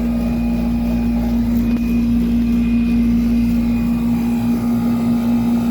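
1995 Tempstar 5000 central air conditioner's outdoor condenser running steadily: an even compressor hum under the rushing of the condenser fan. The unit has run 10 to 15 minutes and is up to normal pressures.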